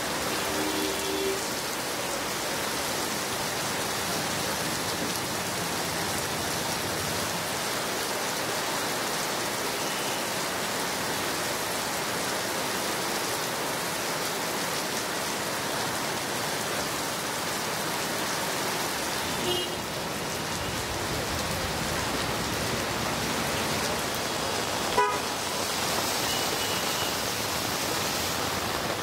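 Heavy rain falling steadily on a waterlogged street, with a few short vehicle horn toots near the start and later on. A single sharp knock near the end.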